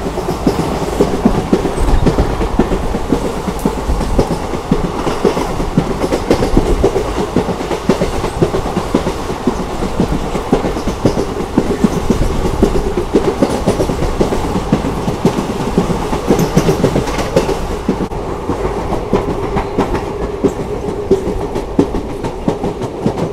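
Boat Mail Express passenger coaches running along the track, wheels clattering over the rails in a steady rush of rolling noise, heard from an open coach door.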